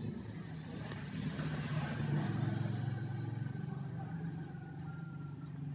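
Low engine rumble, a steady hum that swells to its loudest about two seconds in and then eases off, as of a motor vehicle passing.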